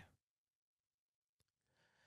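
Near silence: a pause between spoken sentences.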